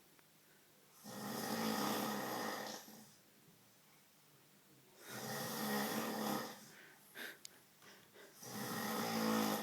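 A man snoring: three long snores about four seconds apart, each a low buzzing rattle mixed with breathy hiss, lasting one and a half to two seconds.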